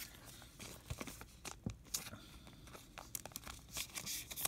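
Faint rustling and crinkling of baseball cards and their packaging being handled by hand, with scattered light clicks.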